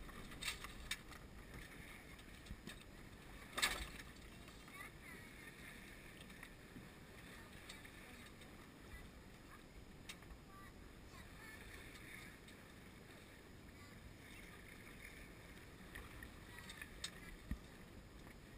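Steady hiss of wind and water as a sailboat moves through the sea, with a few sharp knocks. The loudest knock comes about three and a half seconds in.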